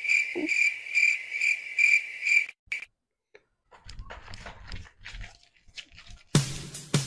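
Cricket-chirp sound effect, about two chirps a second, stopping abruptly a little over two seconds in. Faint low rumbling follows, and near the end a sudden loud sound cuts in.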